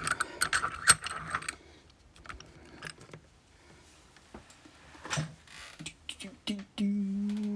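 Small metal pieces jingling and clinking as a lock and its keys or picking tools are handled, followed by a few scattered light clicks. Near the end a person hums one steady note for about a second.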